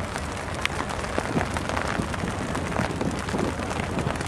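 Steady hiss of light rain with a low rumble underneath and scattered faint ticks.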